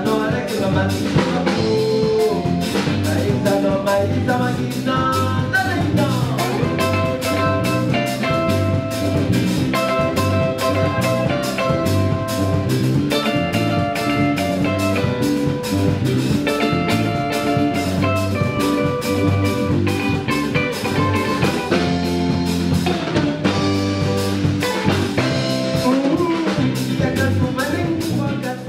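Live band playing a song on drum kit, electric bass, electric guitar and nylon-string acoustic guitar, with a steady beat.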